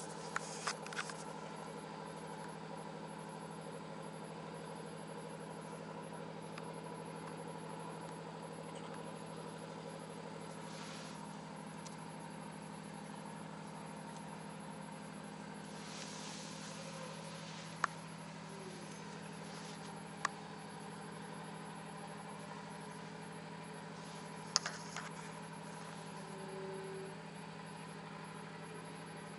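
A steady mechanical hum, like an engine or machine running without change, with a few brief sharp clicks scattered through it.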